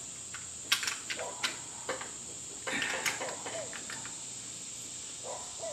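Light metal clicks and scrapes of a shotgun barrel being worked by hand into place on the gun, about six short clicks in the first three seconds. A steady high-pitched whine runs underneath.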